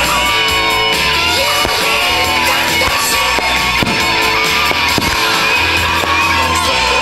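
Music with a singing voice, with a few sharp fireworks bangs through it.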